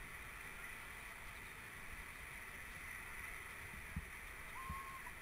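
Faint steady hiss of an outdoor camera microphone, with a few short low thumps on the microphone, the loudest about four seconds in.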